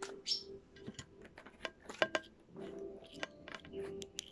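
A deck of fortune-telling cards being shuffled by hand: a run of many quick, light clicks and flicks as the cards slip against each other, stopping and starting.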